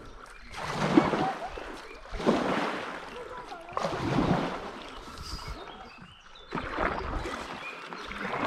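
Stand-up paddleboard paddle strokes in river water: a rough swishing splash swells and fades every second or two.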